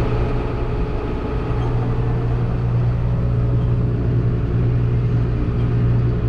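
Diesel engine of harvest machinery running steadily in the field, a constant low hum with no change in speed.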